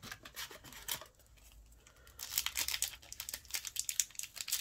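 Foil Yu-Gi-Oh! booster pack crinkling as it is handled and torn open: a few light crackles at first, then dense crinkling from about two seconds in.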